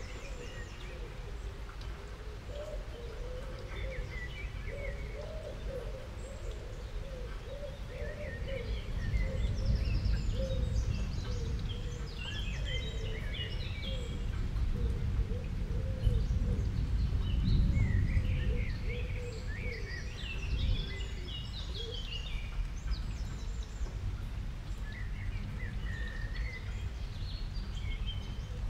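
Scattered clusters of short high chirps over a steady low rumble that grows louder in the middle.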